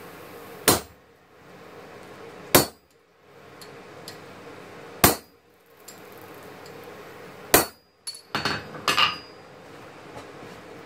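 A blacksmith's hammer striking a handled punch held on red-hot steel on an anvil: four sharp, ringing blows about two and a half seconds apart. After the last blow comes a short clatter of metal on the anvil as the tools are set down.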